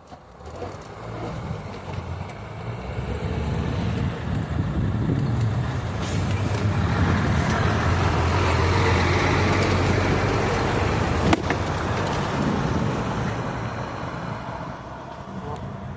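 A motor vehicle passing by. Its steady, low-pitched sound builds over several seconds, is loudest around the middle and fades away toward the end, with a single sharp click partway through.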